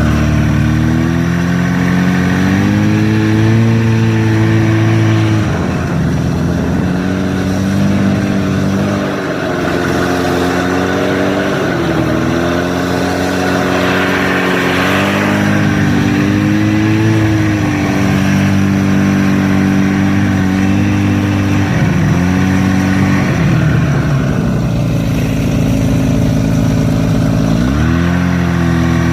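Buran snowmobile engine running while riding, its pitch rising and falling as the throttle is opened and eased off. Near the end it settles to a lower pitch for a few seconds, then revs up sharply.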